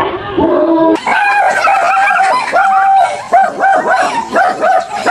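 A small dog barking over and over, about three barks a second, after a few lower-pitched calls in the first second.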